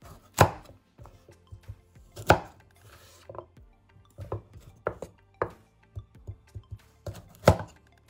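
Chinese cleaver chopping raw taro on a bamboo cutting board: a run of knocks as the blade cuts through and strikes the board. The three hardest come about half a second, two seconds and seven and a half seconds in, with lighter cuts between them.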